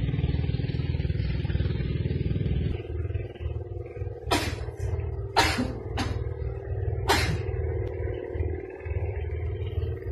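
A small engine idling steadily, with four short, sharp noises about four to seven seconds in.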